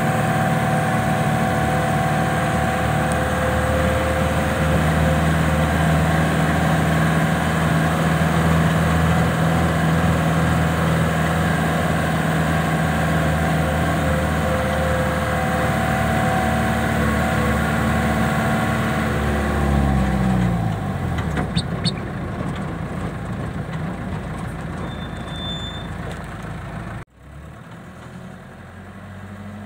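Vehicle engine running steadily under way, with road noise. About two-thirds of the way through, the engine note falls as the vehicle slows, leaving quieter running and road noise; there is a brief drop-out near the end.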